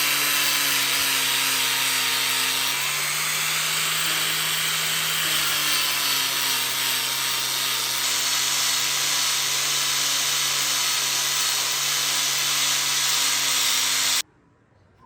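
Electric grinder running and grinding metal: a steady motor hum under a loud hiss, its pitch dipping slightly now and then under load. It stops abruptly near the end.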